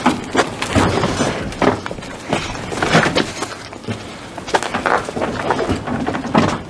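Irregular knocks, clanks and clatter of tools and parts being handled.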